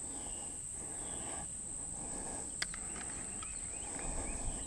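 Steady high-pitched insect chorus droning without a break, over faint outdoor background noise, with a single sharp click about halfway through.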